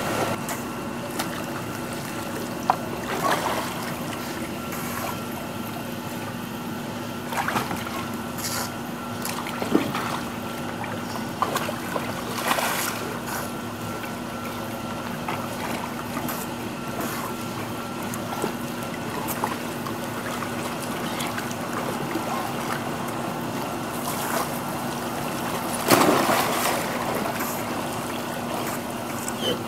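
Dogs wading and swimming in a swimming pool: water sloshing and trickling, with short splashes every few seconds, the loudest near the end, over a steady low hum.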